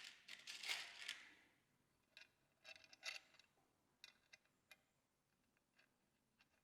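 Mostly near silence, with faint work noises from fitting ATV floorboard parts: a brief rustle at the start, then a few light, scattered clicks and taps as the bracket and screws are handled.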